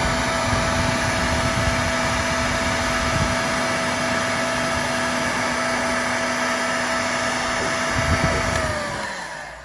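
Electric heat gun blowing steadily while shrinking a solder-seal heat-shrink connector onto a fuse wire; it is switched off near the end and its fan winds down.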